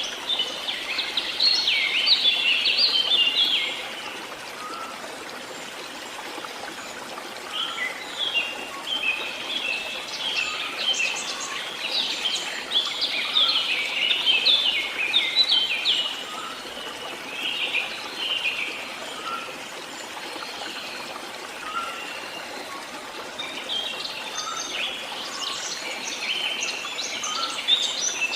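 Songbirds chirping and twittering in quick, busy bouts: near the start, again through the middle, and near the end. Underneath them runs a steady rush of flowing water from a stream.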